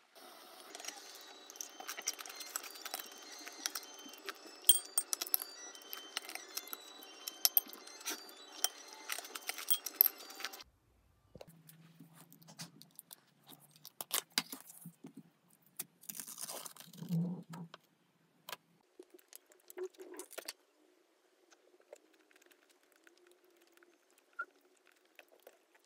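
Metal spoon clinking and scraping against a bowl while eating, many sharp clinks for about ten seconds. Then, after a sudden change, sparser handling sounds as a tub of ice cream is opened, its lid and foil seal peeled off and a spoon scraping into the ice cream.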